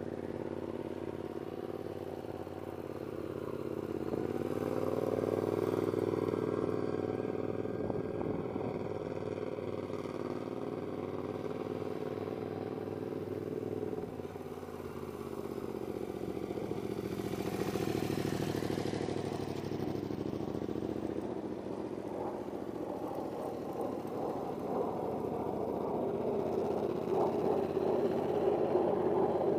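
Yamaha FZ-07's parallel-twin engine running through a Toce aftermarket exhaust as the bike circles, its note rising and falling with the throttle. It swells and fades as the bike passes and grows louder near the end.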